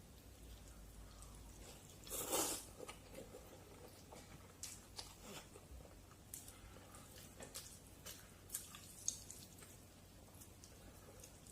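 Close-up eating sounds of somen noodles in black bean sauce: one loud slurp about two seconds in, then soft wet chewing with small mouth clicks.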